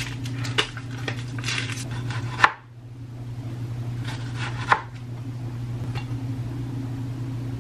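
Kitchen knife slicing a tomato on a cutting board: a few cutting strokes, each ending in a sharp tap of the blade on the board, over a steady low hum.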